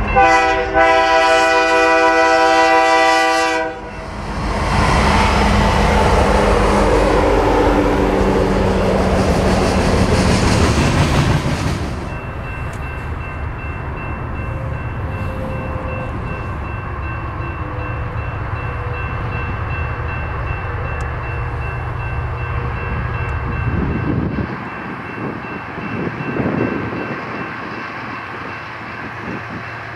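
BNSF diesel freight locomotive's air horn sounding one long chord for about three and a half seconds, followed by the loud rush of the train passing close. About twelve seconds in, the sound drops suddenly to the steadier, quieter rumble of diesel locomotives working a freight train.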